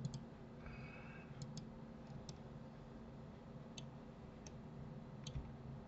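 Computer mouse buttons clicking: about seven faint, scattered clicks over a low steady hum.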